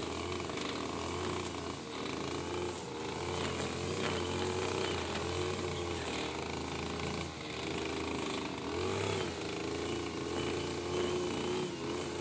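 Backpack brush cutter's engine running continuously, its pitch rising and falling as the trimmer head works through grass.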